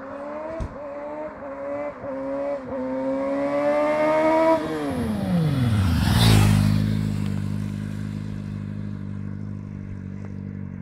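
Suzuki motorcycle engine revving up through three or four quick gear changes as it comes closer, then the throttle shuts and the pitch falls sharply as the bike passes with a brief rush of wind noise, braking into a stoppie. The engine then runs at steady low revs as it moves away.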